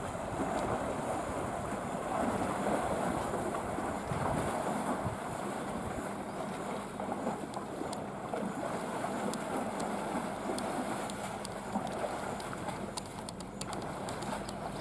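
Lake water splashing and sloshing as Sri Lankan elephants wade through it, with wind buffeting the microphone and a few sharp splashes or clicks in the second half.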